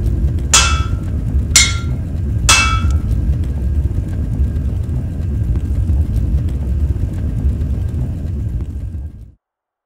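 Three hammer blows on an anvil, about a second apart, each with a short metallic ring, over a steady low rumble. The rumble cuts off suddenly near the end.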